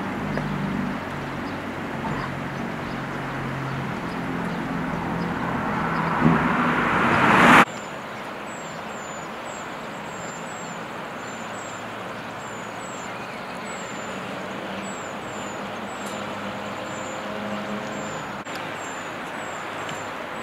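A motor vehicle's engine running and growing louder, then cutting off suddenly about seven and a half seconds in. After that, quieter outdoor ambience with a small bird giving a short, high chirp over and over.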